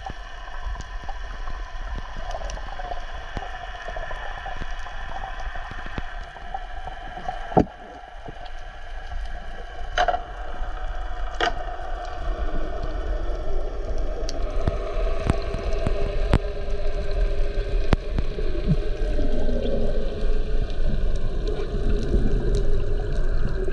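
Underwater sound picked up by an action camera in its waterproof housing: a steady muffled rumble with a wavering hum and a few sharp clicks, the loudest about a third of the way in. It grows louder in the second half.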